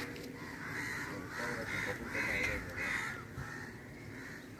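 Crows cawing, a run of short, harsh calls in quick succession that thins out after about three seconds.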